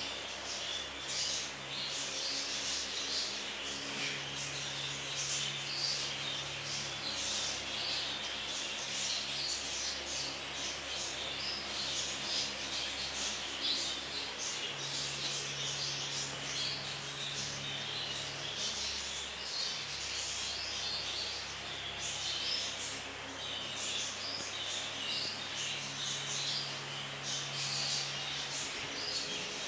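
A flock of budgerigars chirping and chattering continuously, many short calls overlapping, with a low hum coming and going underneath.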